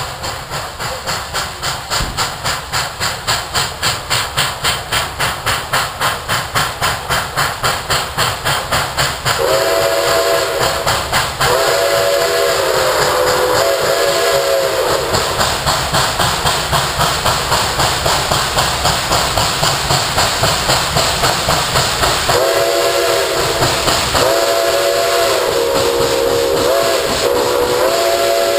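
Nickel Plate Road 765, a 2-8-4 Berkshire steam locomotive, approaching at speed with fast, rhythmic exhaust beats that grow louder as it nears. Its steam whistle blows two groups of blasts, one about a third of the way in and another starting past the three-quarter mark; the second group has the long-long-short-long pattern of a grade-crossing signal.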